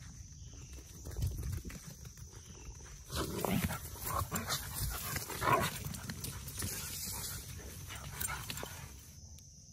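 Dogs play-fighting: short growls and scuffling in the grass, starting about three seconds in and coming in irregular bursts.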